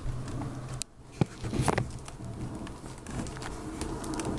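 Clicks and knocks of handling as a KWorld USB TV tuner stick is pushed into a laptop's USB port and the phone recording it is moved about, with one sharp click about a second in.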